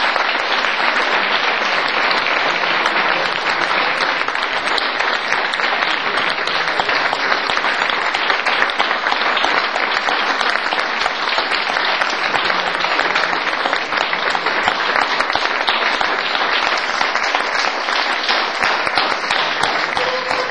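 Audience applauding, a dense, steady clapping that keeps up without a break.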